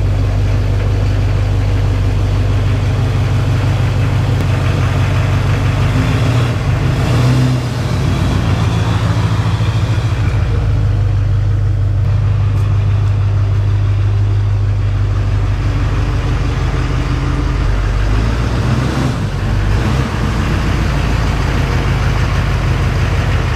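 Chevrolet pickup's Duramax diesel V8 running as the truck is driven at low speed, turned around and backed in. The engine note swells briefly a couple of times.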